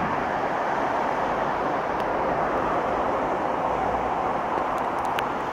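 Steady distant rumble of rail and road traffic at an even level, with a faint click about five seconds in.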